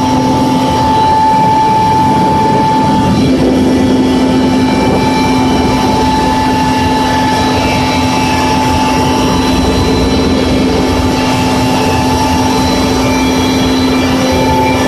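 Cabin noise of a Mi-24 Hind helicopter in flight: its twin turboshaft engines and rotor system make a loud, steady din with several steady whining tones on top. One higher tone drops out about three seconds in and comes back near the end.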